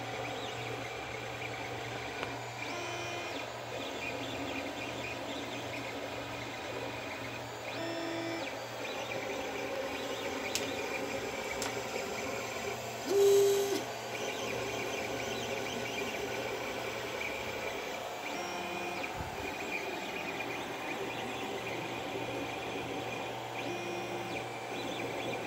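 Creality CR-10 3D printer running a print: its stepper motors sound in short tones that change pitch with each move, over a steady fan hum. One louder, higher stepper tone comes about halfway through.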